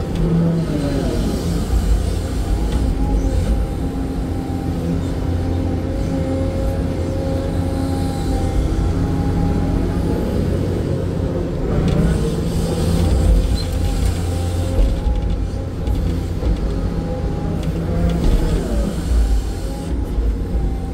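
SANY hydraulic excavator's diesel engine and hydraulic pumps working under load, heard from inside the cab as the bucket digs and the boom swings. A steady engine drone with a whine over it that bends up and down in pitch a few times as the controls are moved.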